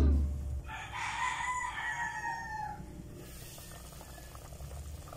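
A rooster crowing once, a single call of about two seconds that starts just under a second in, heard faintly over a low steady hum.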